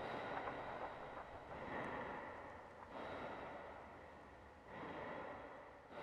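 Faint, heavy breathing: slow swells of breathy noise that come about every second and a half, over a faint steady high hum.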